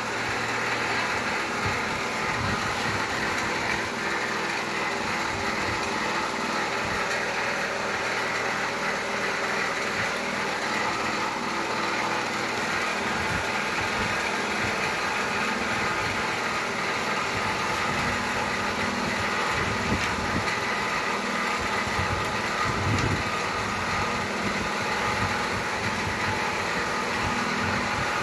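Handheld heat gun running, a steady whirring blow of air that holds an even level throughout, with a few low knocks from handling.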